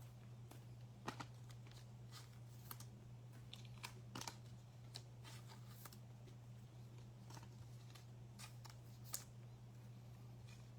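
Near silence over a steady low electrical hum, with scattered faint clicks and light handling noises, a little louder about a second in, around four seconds in and near nine seconds in.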